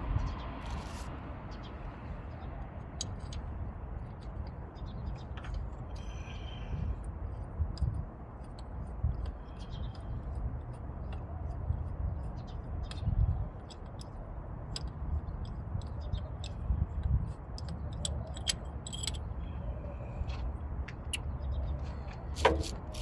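Scattered small metallic clicks and clinks of hand tools and engine parts being handled, over a low steady rumble.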